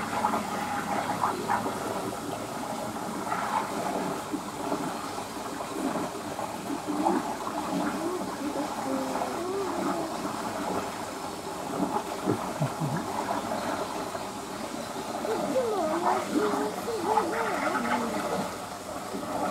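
Indistinct voices of people talking some way off, over a steady background hiss, with no clear sound from the swimming beaver.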